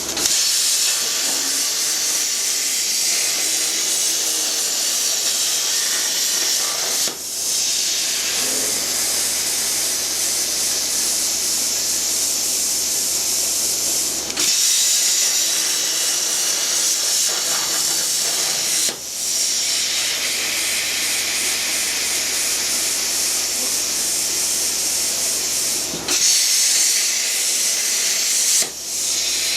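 Plasma cutter hissing steadily as it cuts into a car body. It stops and restarts about five times, each break lasting well under a second.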